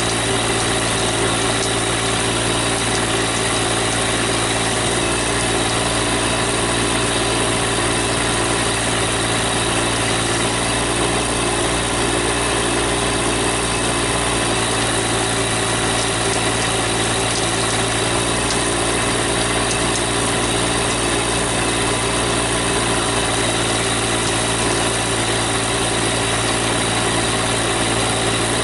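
Diesel engine of a GC1710 sub-compact backhoe tractor running steadily at one speed, with no revving or load changes.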